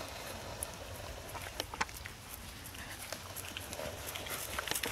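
Hoofbeats of a Quarter Horse/Paint cross gelding trotting on grass: scattered soft knocks and clicks, coming more thickly near the end.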